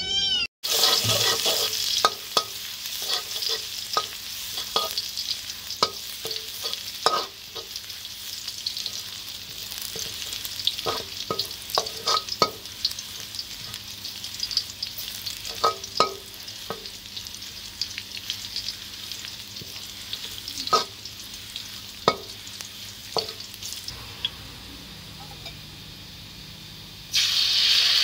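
Chopped garlic frying in oil in a wok, with a steady sizzle and a metal spatula scraping and clicking against the wok many times. Near the end a dark liquid is poured into the hot oil and the sizzle suddenly gets much louder.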